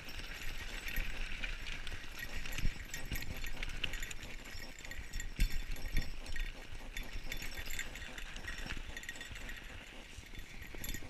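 Mountain bike rattling and clattering as it rides fast over a bumpy dirt trail, with dense small clicks from the chain and bike parts and a few heavier thumps from bumps, the loudest about three seconds in and again around five to six seconds.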